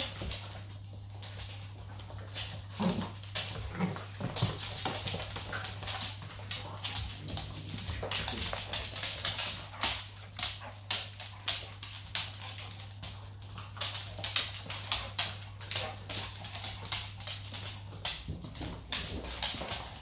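An adult dog and her puppies playing on a wooden floor: claws clicking and scrabbling on the boards, coming thick and fast from about halfway through, with a few short puppy whimpers a few seconds in.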